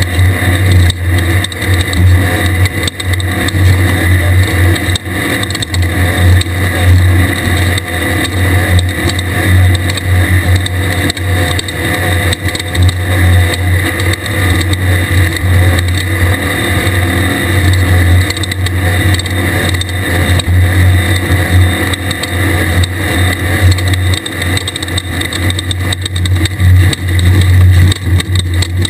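Air-cooled VW 1600 flat-four engine of a Class 1/2-1600 desert race buggy running hard and steady, with frequent knocks and rattles from the buggy over rough ground.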